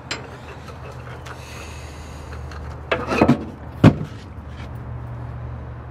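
A heavy lead-acid truck battery being lifted out of a metal battery box: a few clunks around three seconds in and one sharp knock just before four seconds, over a steady low hum.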